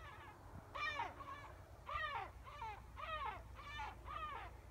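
A bird calling over and over: about seven pitched calls in quick succession, each rising and falling in pitch.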